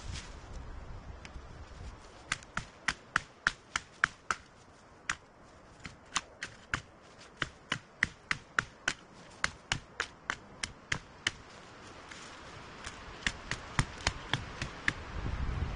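Quick runs of sharp chopping strikes on dead wood, about three a second, with short pauses between the runs.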